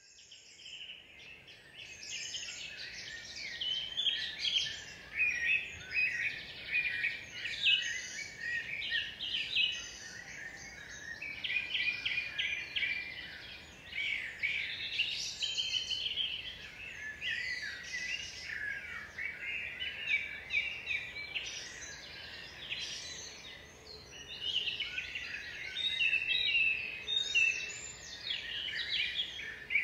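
Several birds singing at once, a dense chorus of overlapping chirps and trills, over a faint steady background hiss.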